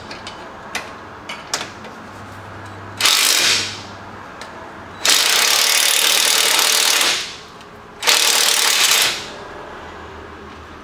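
A power driver running in three bursts, short, then about two seconds, then about a second, spinning a loosened lower control arm bolt on a car's rear suspension partway out. A few light tool clicks come before the first burst.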